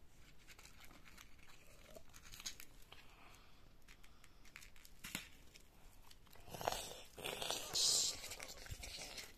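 Slime being kneaded by hand, with sand mixed into it: faint crinkling, crackling squishes that grow louder for a couple of seconds near the end.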